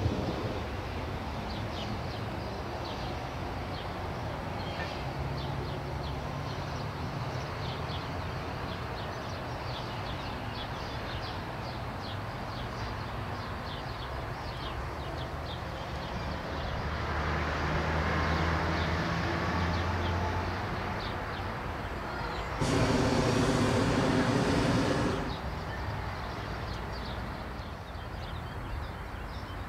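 Hot air balloon's propane burner firing once, a loud steady blast lasting about two and a half seconds that starts and stops abruptly, over a background of high chirps.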